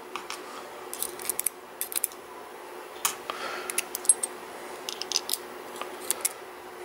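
Irregular small metallic clicks and ticks of steel tweezers working inside the brass control sleeve of a Sargent Signature LFIC core, picking out its pins.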